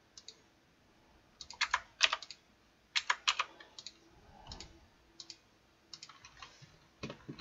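Computer keyboard keys tapped a few quick strokes at a time, with pauses between.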